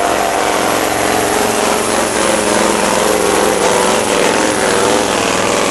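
Diesel engine of a pulling truck running at full power as it drags a weight-transfer sled, a loud, steady drone.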